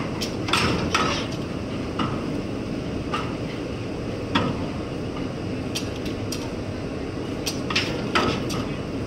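Irregular sharp metallic clinks and knocks, each with a short ring, spaced about half a second to a second and a half apart. They sit over a steady low rumble of ferry machinery.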